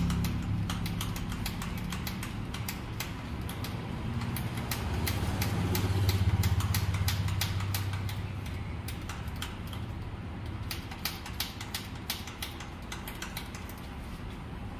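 Mahindra 585 DI tractor's diesel engine running with a low hum and many sharp, irregular clicks on top; the engine sound swells about six seconds in and then settles back.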